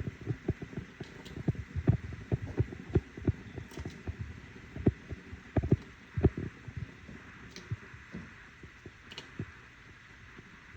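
Pot of chicken broth at a boil: irregular low bubbling several times a second over a steady hiss, thinning out near the end.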